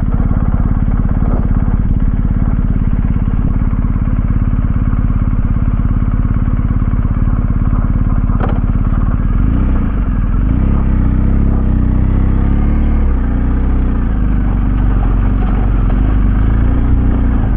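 BMW R 1250 GS boxer-twin motorcycle engine running at low trail speed. About halfway through, its note grows stronger and shifts in pitch, with a single sharp click a little before.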